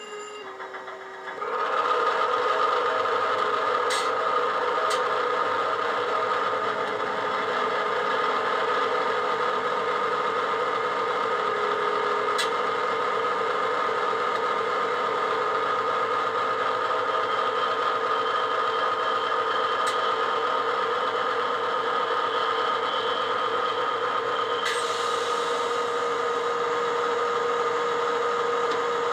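Diesel engine sound of a Class 70 locomotive, played by a model railway DCC sound decoder through a small speaker in a stationary Bachmann model. It comes in sharply about a second and a half in and then runs steadily at idle. A higher whine joins about 17 seconds in and drops away about 25 seconds in, and there are a few faint clicks.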